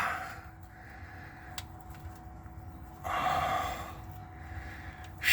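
A man's single heavy breath out, a huff of effort, a little after three seconds in, with a faint click about a second and a half in.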